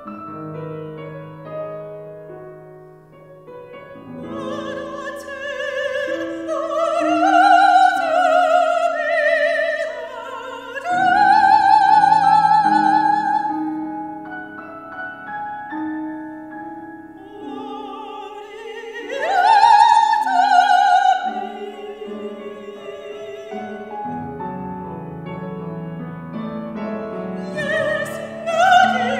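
Operatic soprano singing with a wide vibrato, accompanied by a Steinway grand piano. The voice swells into loud high phrases about a quarter of the way in and again around two-thirds through, with quieter stretches between where the piano carries on softly.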